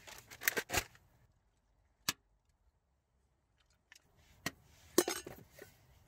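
Short clicks and clinks of a metal camp cooking pot and its lid being handled on a wood stove. They come in two clusters, one at the start and one about four and a half seconds in, with a single click and a quiet gap between.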